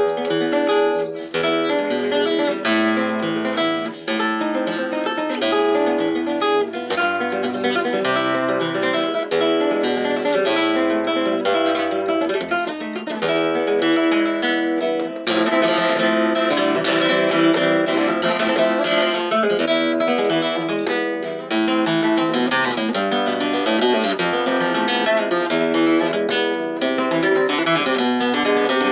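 Graciliano Pérez flamenco guitar of white cypress (blanca) from 2001, freshly strung with D'Addario EJ45 nylon strings, played solo: strummed chords mixed with plucked notes, without pause.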